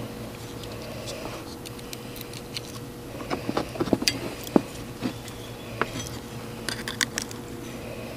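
Scattered light clicks, taps and small rattles of wires and terminal connectors being handled as an ATV's CDI ignition wiring is hooked up, with a faint steady hum underneath.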